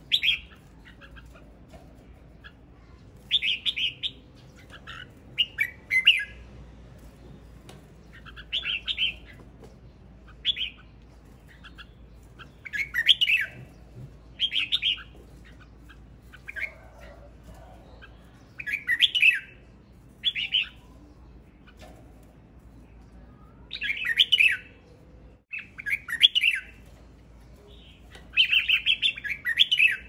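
Male red-whiskered bulbul singing: short, bright song phrases repeated every second or two.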